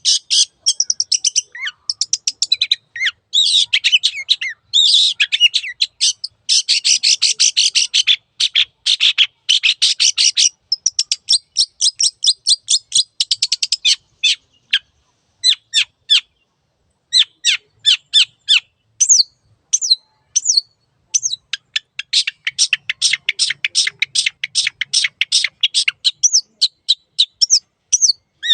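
Long-tailed shrike (cendet) singing vigorously: fast runs of high, scratchy notes, thinning to separate sharp notes for a while around the middle before the dense runs return.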